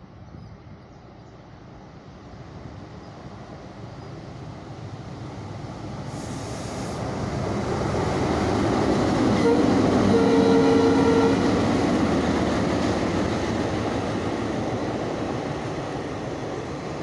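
Twin WDM-3D diesel locomotives and their passenger train approaching and passing at speed: engine and wheels-on-rail sound growing steadily louder to a peak about two-thirds through, then fading as the coaches roll past. A brief steady tone about a second long sounds near the loudest point.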